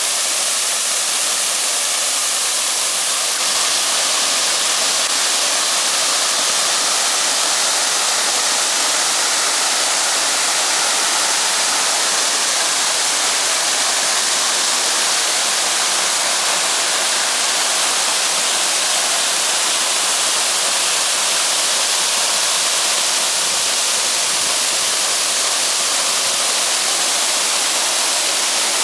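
Waterfall pouring: a steady, dense rush of falling water, even throughout.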